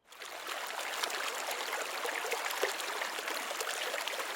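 Liquid glue being poured out of its bottle for the slime, a steady crackly trickle.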